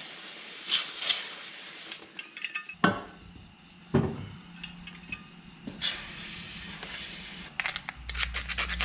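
A pressurized spray canister hisses cleaner onto an angle grinder's aluminium gear housing in two bursts, with knocks and clinks between them. Near the end come rapid scraping clicks of a screwdriver picking old grease and broken gear teeth out of the housing.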